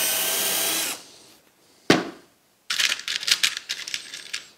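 Cordless drill-driver running steadily as it drives a screw through a metal drawer runner into a timber support, stopping about a second in. Then a single sharp knock, and a run of clicking rattles as small screws are picked from a plastic tray.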